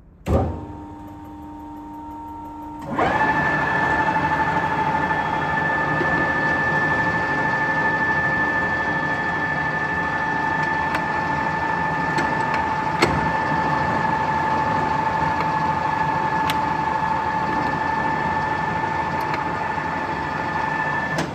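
Nuttall Generation 350 geared-head centre lathe being started: a clunk as the motor switches on and a low hum, then about three seconds in the spindle drive engages and the headstock runs louder with a steady gear whine. It shuts down right at the end.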